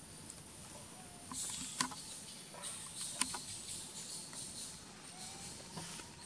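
Irregular rustling and crackling, with two sharp clicks about a second and a half apart, over a faint steady high insect hiss.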